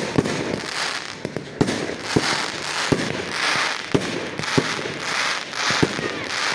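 Aerial fireworks bursting overhead: about ten sharp bangs at irregular intervals, with a crackling, sizzling hiss from the glittering stars between them.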